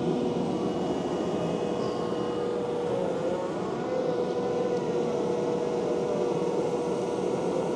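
A Takeuchi TL12V2 compact track loader running steadily under load, driving a high-flow hydraulic Conetex soil-conditioner attachment as it grinds through thick grass. A steady whine sits over the engine noise.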